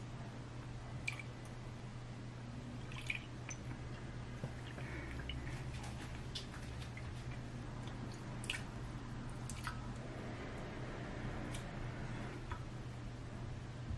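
Small clicks and wet sounds of a seasoning sauce being made in a glass mug: soy sauce poured in, thick chili paste stirred with a wooden spoon, and minced garlic added with a metal spoon. A steady low hum runs underneath.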